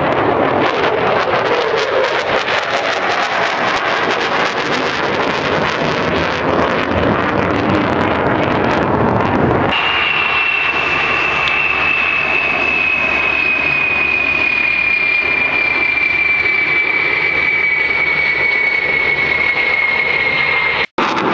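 F-22 Raptor jet noise overhead: a loud, dense rush. About ten seconds in it cuts suddenly to an E-3 Sentry AWACS on landing approach, whose jet noise is softer and carries a high, steady engine whine that slowly falls in pitch. There is a brief moment of silence near the end.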